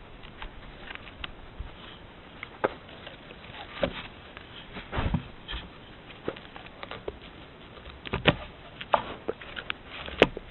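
Gray wolf snuffling and rubbing against a trail camera at close range: irregular clicks, scuffs and brushing of fur on the housing, a few each second.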